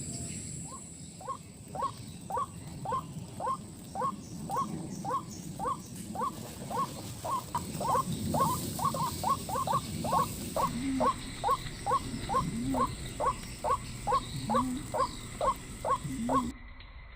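White-breasted waterhen (ruak-ruak) calling in a long series of short, evenly repeated notes, about two a second, crowding closer together for a few seconds midway. Some lower, deeper short notes join in during the second half, and the calling breaks off abruptly near the end.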